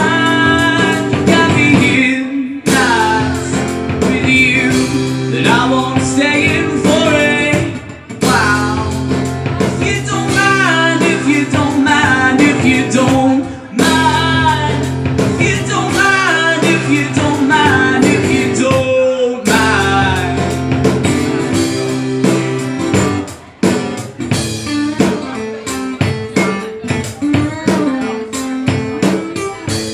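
Live acoustic song: strummed acoustic guitar with singing and a foot-played kick drum keeping the beat. The music drops out for a moment every few seconds.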